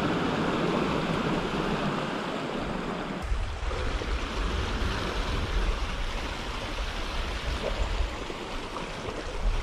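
Sea swell washing and splashing over the rocks just below, a steady rush of water. About three seconds in, a low rumble joins it.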